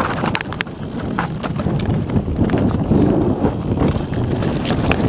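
YT Industries Capra AL Comp mountain bike descending a rocky trail at speed: tyres rolling and crunching over loose stones, with many sharp rattles and knocks from the bike and steady wind on the microphone.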